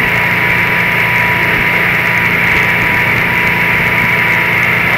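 Motorboat engine running steadily at speed while towing a water skier, with a constant rush of wind and water from the wake.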